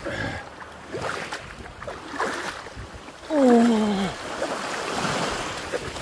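Seawater splashing and sloshing around a swimmer trying to climb out over a slippery submerged slab. About three seconds in, a man gives a loud groan that falls in pitch.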